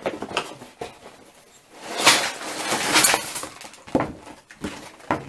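A cardboard toy-set box being opened and handled, with plastic bags of building bricks rustling and rattling as they come out onto the table. It is a run of irregular scrapes and rustles, loudest about two to three seconds in.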